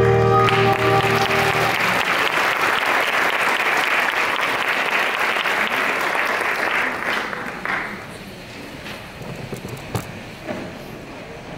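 Theatre audience applauding as the last chord of a song ends, the applause dying away after about eight seconds; a couple of knocks follow near the end.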